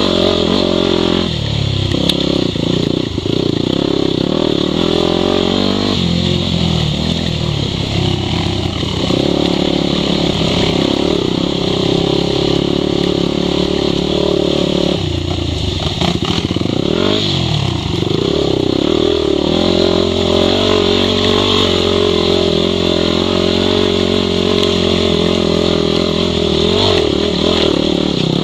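Yamaha WR250 dirt bike's 250 cc four-stroke single-cylinder engine running under throttle over rough ground, revs rising and falling as the rider works the throttle, with a marked drop and pick-up in revs about halfway through.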